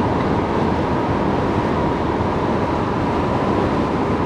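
Steady road and engine noise inside the cab of a moving van.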